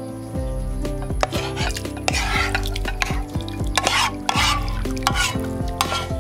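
Cooked minced beef and its cooking liquid sliding and being scraped out of a frying pan into a glass bowl, in three wet, scraping spells from about a second in, over background music.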